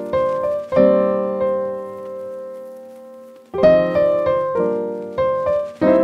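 Background piano music: chords struck and left ringing, then fading, with a long held chord in the middle and new chords coming in quicker near the end.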